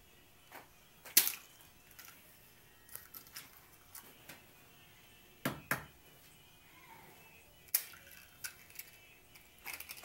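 Eggs being tapped and cracked on the rim of a glass mixing bowl: a few sharp knocks with small shell clicks between. The loudest knock comes about a second in, two follow close together around halfway, and another comes a little later.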